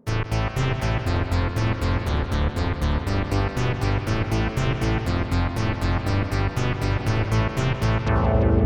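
Roland Alpha Juno-1 synthesizer preset played through a Source Audio Nemesis delay pedal: a fast, even pulse of bright notes, about five or six a second, over a changing low bass line. It starts suddenly, and the sound grows a little fuller near the end.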